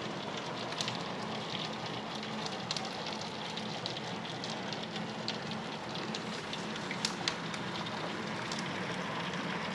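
Heavy rain falling, heard through window glass: a steady hiss with scattered sharp ticks of drops striking.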